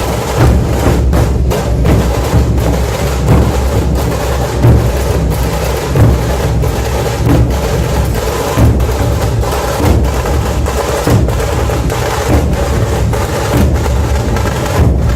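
Puneri dhol-tasha ensemble playing: massed dhol drums beat a continuous rhythm under the sharp, rapid strokes of tasha snare drums.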